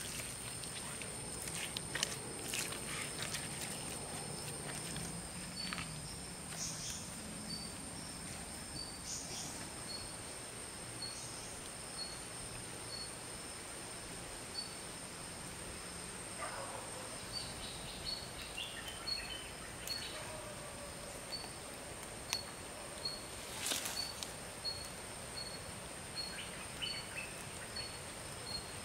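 Outdoor background of a steady, high-pitched insect whine, with a short high chirp repeating about every 0.7 s and, a little past halfway, one falling call. A few soft clicks and knocks come in the first seconds.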